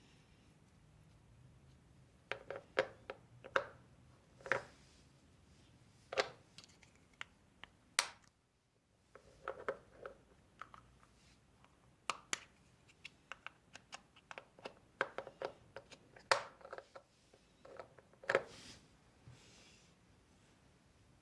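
Slime being kneaded and folded by hand, giving faint, irregular short clicks and pops, several a second at times.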